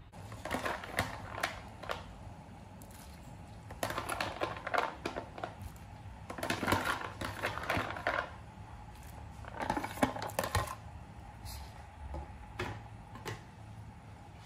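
Dry fusilli pasta clattering into a pot in four or five short bursts of light rattling clicks, one handful after another.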